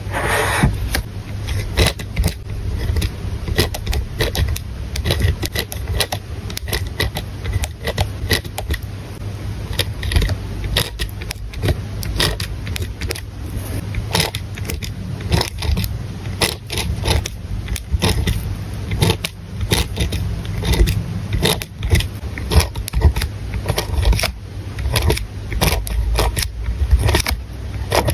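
Highlighter tip swiped across paper in the first second, then a pen scratching and ticking over lined notebook paper as words are handwritten, in quick irregular strokes over a steady low rumble.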